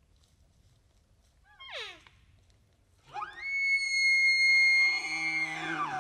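Bull elk bugling at close range: a rising note that breaks into a long high whistle, held about two seconds, then falls away, with a lower tone joining in near the end. A short falling call is heard before it, about a second and a half in.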